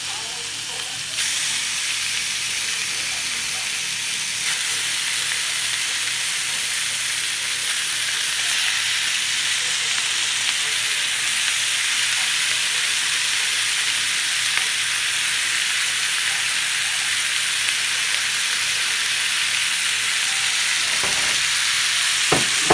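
Chopped raw bacon frying in a stainless steel frying pan, rendering in its own fat with a steady hissing sizzle. The sizzle grows louder about a second in as more bacon goes into the pan, then holds.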